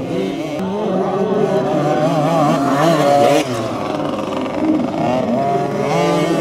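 Engines of 50cc two-stroke motocross minibikes revving hard, the pitch climbing and dropping quickly with each twist of the throttle and gear change.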